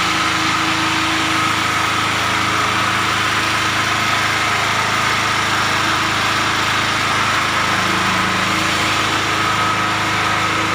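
Powerreko XLNT portable generator engine running steadily at an even speed after a choke start.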